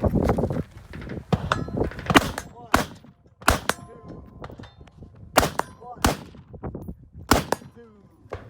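A string of rifle shots, about seven sharp cracks spaced roughly a second apart, some followed by the brief ringing clang of hit steel targets.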